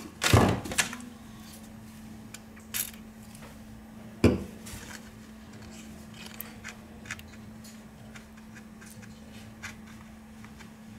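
Sharp clacks and knocks of a plastic playing card and a smartphone handled against a hard desk, the loudest about half a second in and another about four seconds in, with light clicks between, over a steady low hum.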